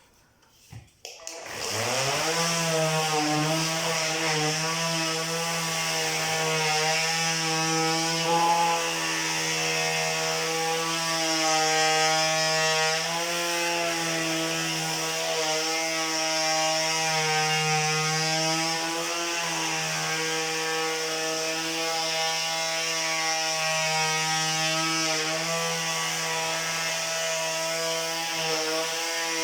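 Parkside PAMS 12 A1 12 V cordless palm sander switching on about a second in, its motor whine rising quickly to speed. It then runs steadily while sanding a birch board under two-handed pressure, a hiss of sandpaper on wood over the hum, its pitch wavering slightly with the load.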